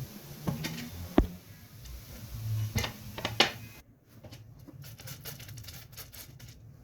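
A few sharp clicks and knocks of kitchen handling, the loudest about a second in, then a run of fainter light ticks after the background hum drops out abruptly about four seconds in.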